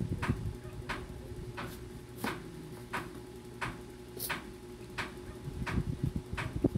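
Kitchen knife slicing kamansi (breadnut) on a wooden cutting board: dull knocks and scrapes of the blade against the board at the start and again near the end. A steady faint ticking, about one and a half clicks a second, and a low hum run underneath.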